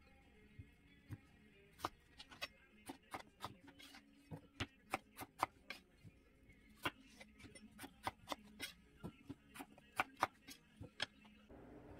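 Chef's knife chopping an onion on a plastic cutting board: a run of irregular sharp knocks, several a second.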